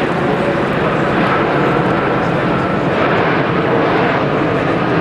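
Airbus A380 airliner flying a low display pass overhead, its four jet engines making a loud, steady noise.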